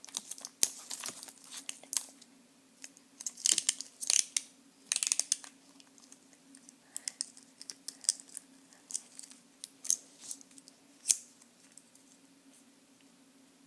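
Packaging being handled and torn open: short bursts of crinkling and tearing with sharp crackles, coming and going. A faint steady hum runs underneath.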